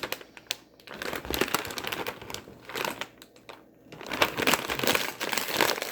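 Plastic snack packaging crinkling and rustling as it is handled, in irregular bursts with a couple of brief lulls.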